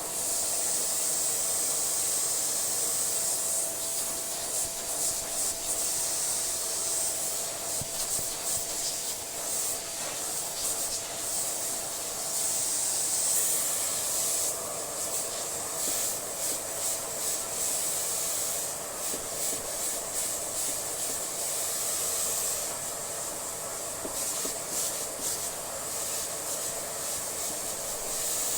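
Dyson Small Ball Allergy upright vacuum running through its hose and wand, with a steady motor whine and the hiss of rushing air. The nozzle rubs and scrapes irregularly over a dusty surface as it sucks up the dust.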